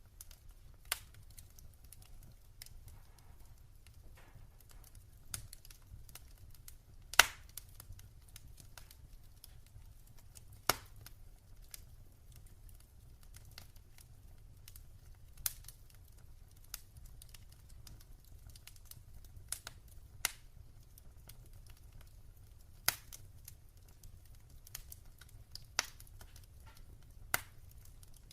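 Wood fire crackling in a fireplace: irregular sharp pops and snaps of varying strength, one much louder pop about a quarter of the way through, over a faint low rumble.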